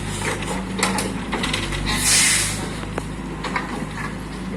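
Heavy earthmoving machinery on a construction site: a diesel engine running steadily under scattered metallic clanks and rattles, with a short burst of hiss about two seconds in.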